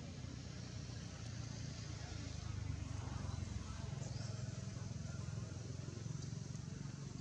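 Low, steady engine hum of a distant motor vehicle, swelling through the middle and easing off again, with a couple of faint, short, high rising chirps.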